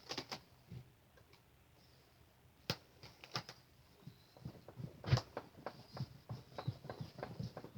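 Pekin ducks sneezing: a few short, sharp sneezes at irregular intervals, the loudest about two-thirds of the way in, with a quick run of softer short sounds through the second half.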